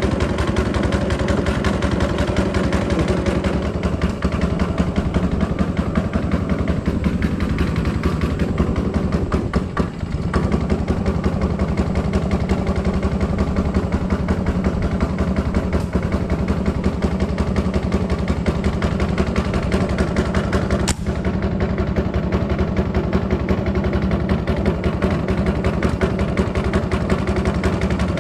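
A small fishing boat's engine running steadily with a fast, even firing rhythm. There is one sharp click about three quarters of the way through.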